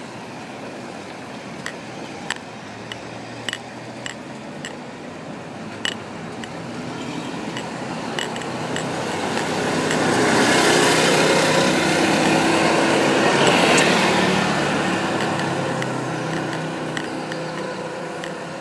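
A small motor vehicle approaches and passes on a wet road: engine hum and tyre hiss swell to a peak about ten to fourteen seconds in, then fade. In the first few seconds, a necklace pendant ticks now and then against the recording device.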